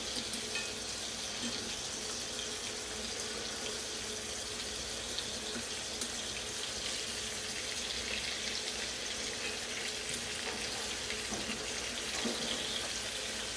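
Whole sardines frying in oil in a frying pan, a steady sizzle, with a few light clicks of a utensil as they are turned.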